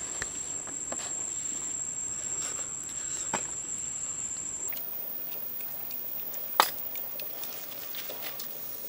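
A steady high-pitched insect trill, typical of a cricket, that cuts off suddenly about halfway through. Light clicks and one sharp clink of a metal spoon against a steel wok about two-thirds in.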